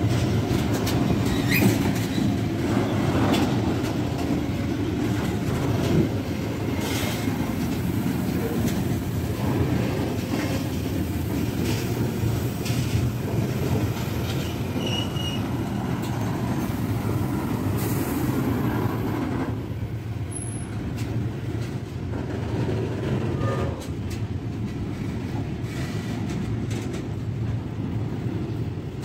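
A train rolling past on the tracks: a steady rumble of wagons with repeated wheel clicks over the rail joints and a few brief high wheel squeals.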